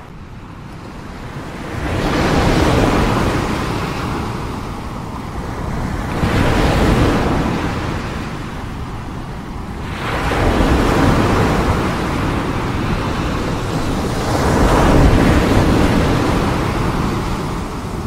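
Ocean waves breaking on the shore, the surf swelling and fading four times, about every four seconds.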